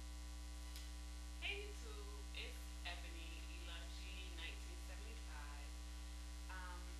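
Steady low electrical mains hum, with a woman's quiet talking over it.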